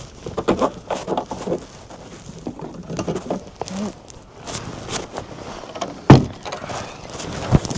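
Handling noises, irregular knocks and clatter, with a loud thump about six seconds in and another near the end.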